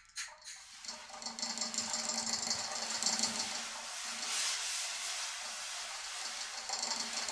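Prepared viola and prepared timpani played with extended techniques: a fast, fine, high rattling scrape starts about a second in and runs on, swelling into a hiss around the middle.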